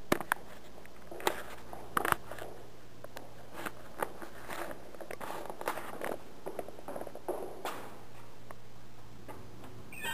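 Footsteps going down a flight of stairs: a string of irregular taps and scuffs, with a few sharper knocks in the first two seconds.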